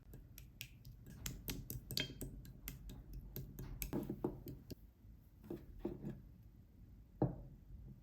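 Clear slime being squeezed and poked by hand, giving a quick run of small sticky clicks and pops, then a few longer, deeper squishes in the second half.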